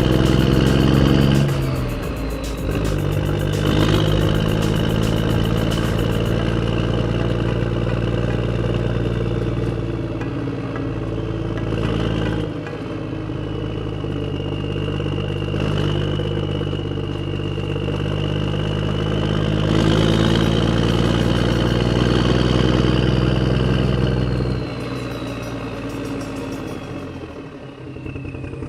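An engine running steadily, with its pitch shifting a couple of times and a thin whine that slowly rises and falls above it.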